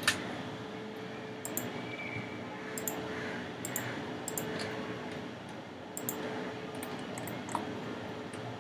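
Computer mouse clicking a dozen or so times, several clicks in quick pairs, over a faint steady hum.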